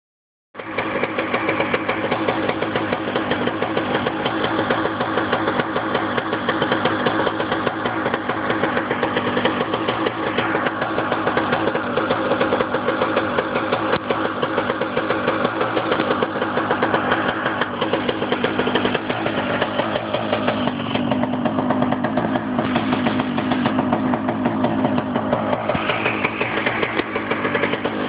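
Honda CR85 two-stroke engine in a Metrakit race minibike, running continuously. It starts suddenly about half a second in, and its speed shifts up and down a few times.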